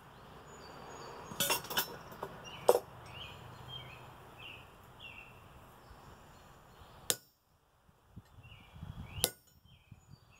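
Hand hammer striking a handled top tool held on a hot railroad spike on the anvil: a few sharp metallic clinks, three close together a couple of seconds in, then two more spread out later.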